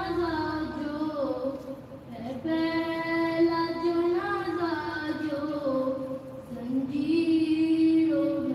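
A boy's voice chanting a religious recitation solo and unaccompanied, in long held notes that slide between pitches. He pauses briefly for breath about two seconds in and again about six and a half seconds in.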